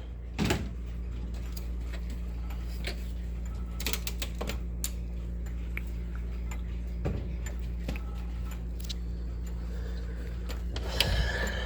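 Two-weight grandfather clock's movement ticking about once a second, loud with the case open. There is a knock about half a second in as the side panel is opened, and some handling rustle near the end.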